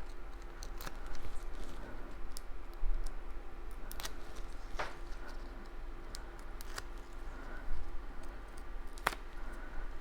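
Cardstock pieces being handled and pressed into place, giving a few scattered light clicks and taps over a faint steady hum.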